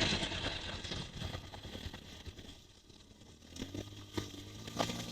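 Mostly quiet, with a few soft knocks; near the end a motorcycle engine starts to be heard faintly idling.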